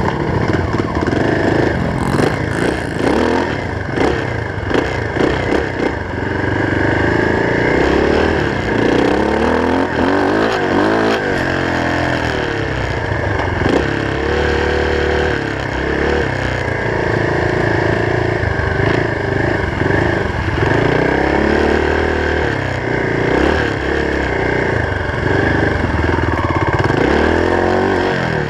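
Off-road engine riding a dirt track, revving up and down again and again as it accelerates, shifts and backs off.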